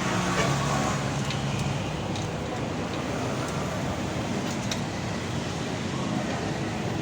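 Steady road traffic noise, with background voices early on and a few faint clicks.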